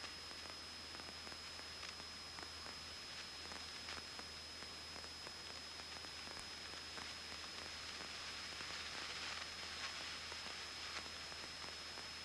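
Faint steady hiss with a thin high-pitched whine and a few faint clicks: electrical noise on a Cessna 172's cockpit intercom audio feed.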